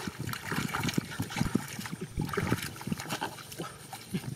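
Hands groping in shallow muddy water, making irregular small splashes and squelches.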